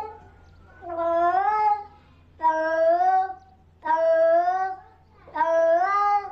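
A cat meowing over and over: four long meows, each rising in pitch, about a second and a half apart, after the tail of another at the start.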